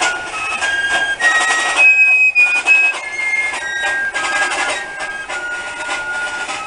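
Background music: a slow melody on a wind instrument, one held note after another, over a steady hiss.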